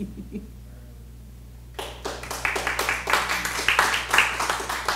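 Audience applauding, starting suddenly about two seconds in and carrying on as a dense, irregular clatter of many hands clapping.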